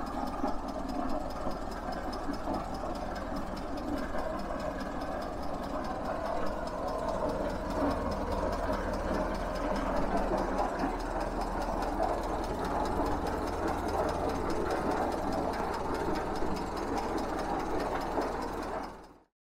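Sawyer Massey 27-50 tractor's four-cylinder inline engine running steadily, with a fast, even firing rhythm. It fades out near the end.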